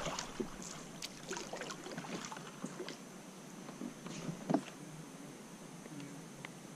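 Kayak moving through calm creek water: soft water sounds along the hull with scattered light taps and knocks, the loudest about four and a half seconds in.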